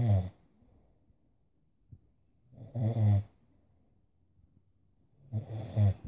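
A sleeping man snoring: one snore about every three seconds, the first fading out at the start, one about three seconds in and one near the end.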